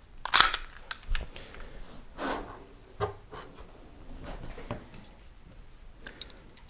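Handling noise from a CZ P-07 pistol: a sharp click about half a second in, then a few softer clicks and rubbing as the gun is set down on a cloth and handled.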